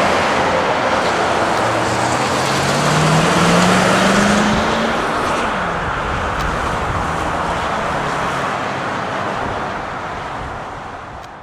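Jet airliner's engines at high power during a takeoff, a loud steady rush with a low hum rising in pitch a few seconds in, then fading away near the end.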